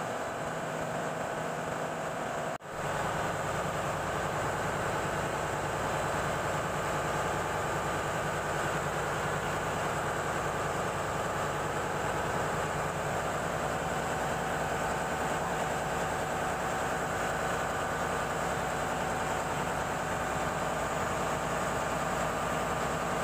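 Steady hum and hiss of ship engine-room machinery running. The noise briefly drops out about two and a half seconds in, then continues slightly louder.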